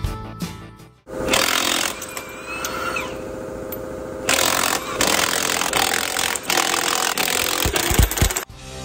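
Background music fades out, then a power tool runs with a rapid mechanical rattle, louder from about four seconds in.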